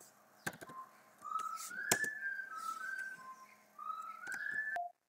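A person whistling a short tune of held notes that step up and down in pitch, with a few sharp computer-key clicks; the sound cuts off suddenly near the end.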